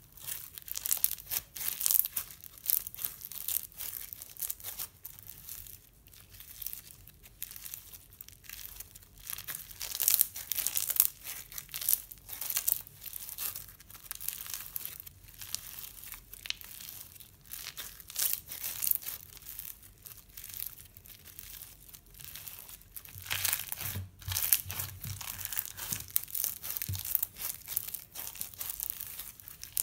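Thick, fluffy slime flecked with colored bits being kneaded, stretched and torn apart by hand: a run of irregular crackling, sticky tearing and crinkling, louder in spells.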